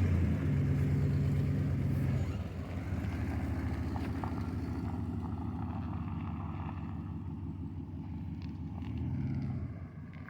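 An engine running steadily with a low, even hum, loudest in the first two seconds and then settling lower.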